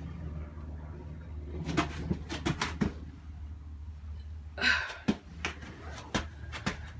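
Light knocks and clicks of someone moving about inside a small wooden playhouse, in a cluster near the start and again scattered in the second half, with a brief scraping rustle a little past halfway, over a low steady rumble.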